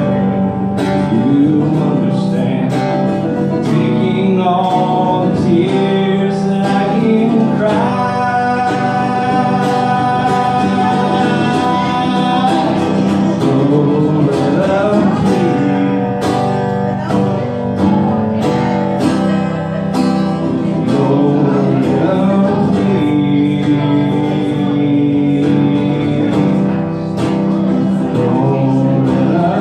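A man singing while playing an acoustic guitar, strummed and picked, in a live solo performance heard from across the room.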